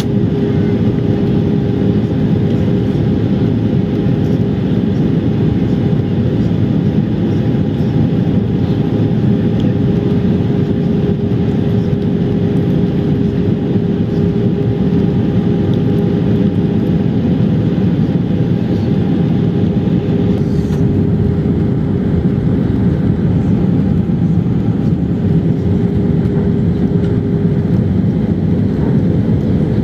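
Jet airliner cabin noise heard from a window seat during descent: an even, loud rush of airflow and engine drone with a steady humming tone in it.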